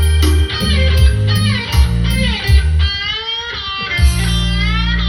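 Instrumental break in a Thai song: an electric guitar plays a lead melody with bent, sliding notes over a pulsing bass line, which drops out for about a second midway.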